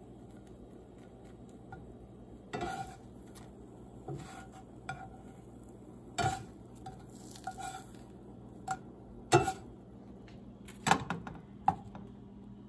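Plastic slotted spatula scraping and knocking against a metal frying pan as a small pancake is worked loose and lifted, with scattered clinks of a ceramic plate. The clatters come singly, a second or so apart, and are loudest in the second half.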